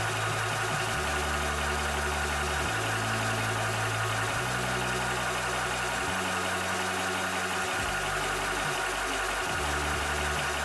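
Cobra high-pressure PCP air compressor (300 bar / 4500 PSI) running steadily while pumping, with a low hum that shifts in pitch every second or two.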